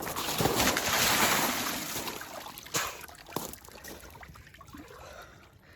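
Water splashing and trickling, loudest in the first couple of seconds and then dying down, with a few light knocks.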